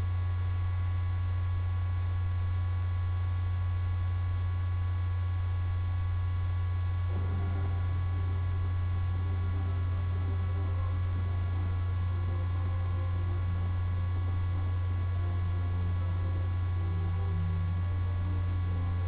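Steady low electrical hum with faint steady higher tones over it; from about seven seconds in, faint broken low sounds sit underneath.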